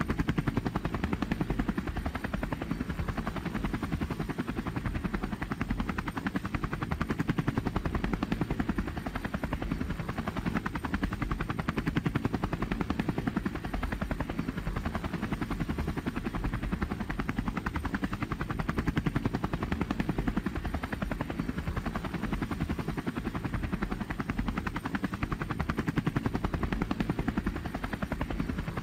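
Helicopter rotor and engine noise heard from aboard the helicopter: a steady, rapid blade chop that holds even throughout.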